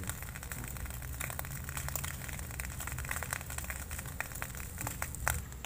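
Egg frying on a banana leaf in a hot, oil-free wok: many small irregular crackles and ticks over a steady low rush.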